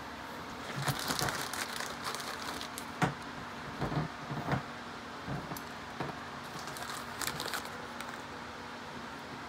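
Light, scattered metallic clicks and taps of new clutch springs and their bolts being fitted onto a motorcycle clutch pressure plate, with one sharper click about three seconds in.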